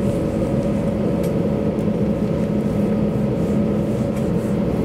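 Steady cabin noise inside an Airbus A321-200 taxiing after landing: the engines' even hum at taxi power over a constant low drone and air hiss.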